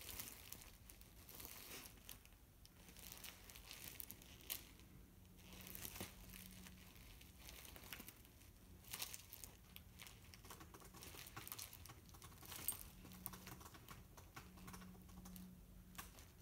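A puppy chewing and gnawing on a fabric toy: faint, irregular clicks and rustles as her teeth work the toy.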